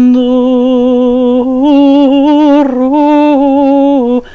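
A solo voice singing a Ukrainian song about the bandura, unaccompanied, in long held notes with a wavering vibrato, stepping up in pitch about a second and a half in. A short breath break near the end.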